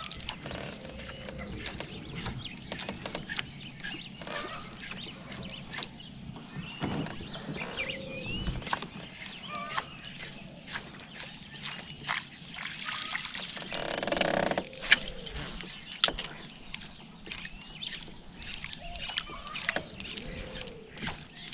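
Lakeside outdoor sound with birds chirping and many small clicks and knocks from fishing tackle and the kayak. About two-thirds of the way through there is a louder rush of noise lasting about a second.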